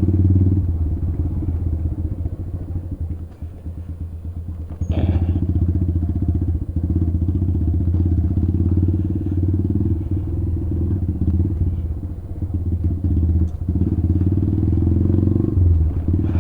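Motorcycle engine and exhaust running steadily while under way, with a fast low pulse; the rider eases off about two seconds in and opens the throttle again about five seconds in.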